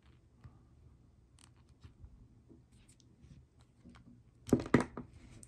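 Faint small clicks of a watch strap's spring bar being worked free of the lug, then a few louder sharp clicks in quick succession about four and a half seconds in.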